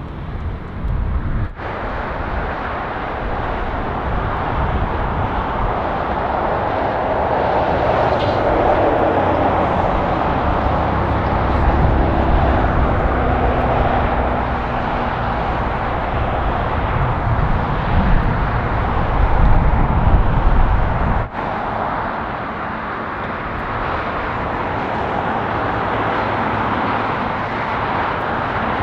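Jet airliner engines heard from the ground, a steady rushing noise with a deep rumble that swells over the first twenty seconds. It drops sharply a little over twenty seconds in, then carries on more quietly.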